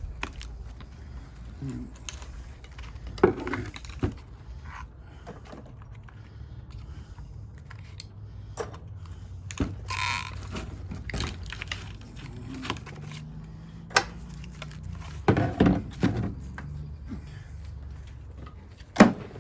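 Scattered knocks, clicks and rattles of scrap metal parts and wire being handled and moved, with the sharpest knock about three seconds in and a cluster near the end, over a low steady hum.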